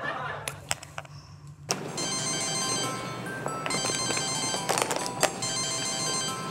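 Mobile phone ringing with a high electronic ringtone melody that starts just under two seconds in, after a few light clicks.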